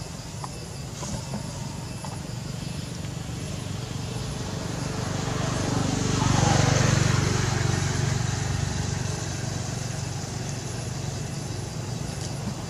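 A motor vehicle passing, its noise building to a peak about halfway through with a falling pitch, then fading, over a steady low rumble.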